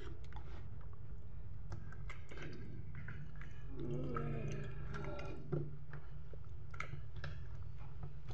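Wet squelching and clicking of hands handling butterflied milkfish in a soy-and-vinegar marinade in a pan, with a sharper click about five and a half seconds in. A short hum of a voice comes around four seconds in, over a steady low hum.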